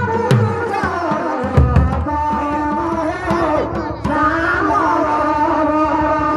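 Live folk dance music: shoulder-slung barrel drums beating under a held, pitched melody line, with heavy drum strokes about a second and a half in.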